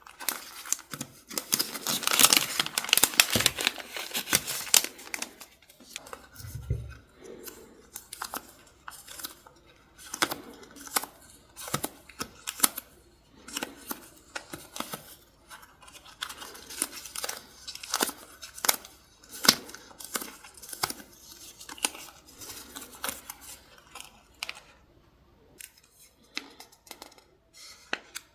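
Paper, stickers and packaging handled close to the microphone: dense rustling, crinkling and tearing at first, then a long run of short sharp snips, clicks and rustles. A soft low thump about six seconds in.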